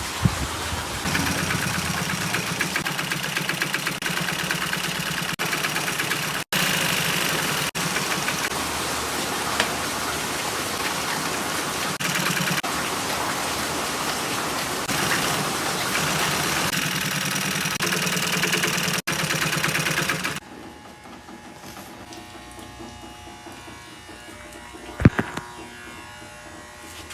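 Upholstery sewing machine running steadily with a fast, even stitching rhythm, stitching the marine vinyl seat panels; it stops about twenty seconds in, leaving quieter handling sounds and one sharp knock.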